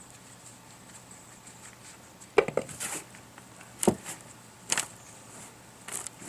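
Potatoes being picked out of loose potting soil and dropped into a bowl: four separate sharp knocks with some rustling, starting about two and a half seconds in.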